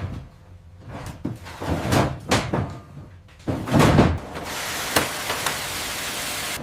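A string of heavy knocks and thuds, the loudest just before four seconds in. After that a steady hissing noise sets in.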